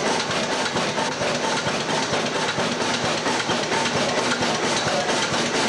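Vintage stationary engine running with a rapid, even, rhythmic clatter.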